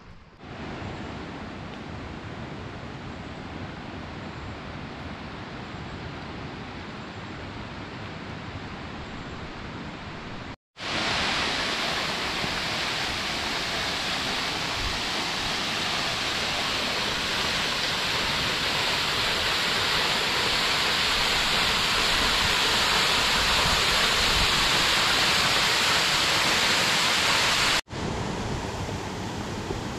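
Steady rush of a waterfall, an even noise with no tones. About eleven seconds in it cuts to a louder, brighter rush, and near the end it cuts back to a quieter one.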